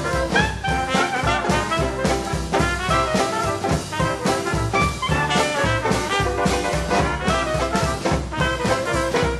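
Background swing-style jazz music with brass instruments and a steady beat.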